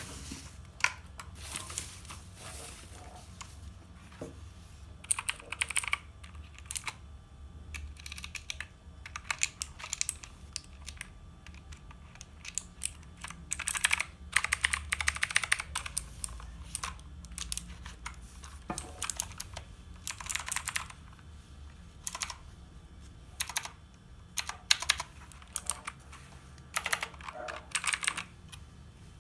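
Typing on a mechanical keyboard with Outemu Blue clicky switches: rapid sharp clicks in irregular runs and pauses.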